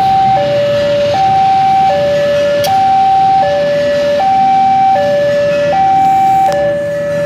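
Two-tone electronic warning alarm of a railway level crossing, a high and a low note alternating steadily about every three quarters of a second. Under it is a low rumble.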